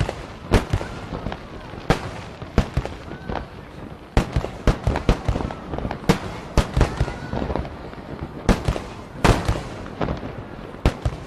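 Fireworks going off: an irregular string of sharp bangs and crackles, many reports in quick succession, each with a short echoing tail.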